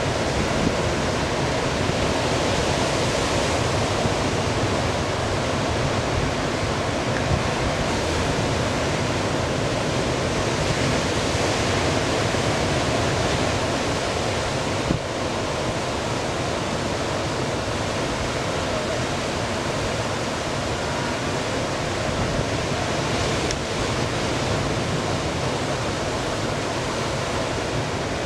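Steady rush of breaking ocean surf and whitewater, an even roar with no single wave crash standing out.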